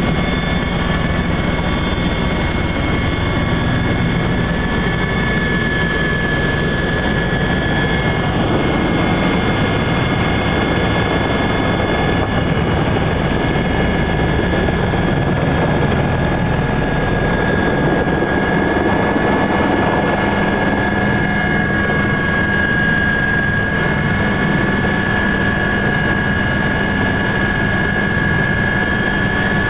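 Helicopter engine and rotor heard from inside the cabin during descent and landing: a steady, loud drone with a high whine running through it.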